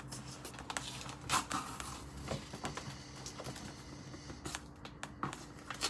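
Handling noise: scattered light knocks, taps and rustles as hands adjust the camera and move a cardboard mailing box, with one louder knock about a second and a half in and another near the end. A faint steady hum runs underneath.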